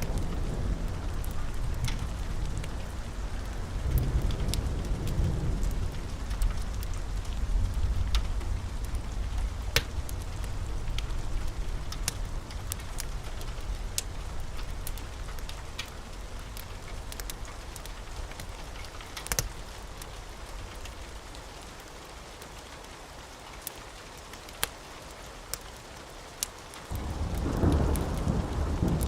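Steady rain with rolling thunder: the low rumble runs through the first half, dies away, then breaks in again suddenly near the end. Over the rain come the sharp pops and crackles of a wood fire, with one louder pop about two-thirds of the way through.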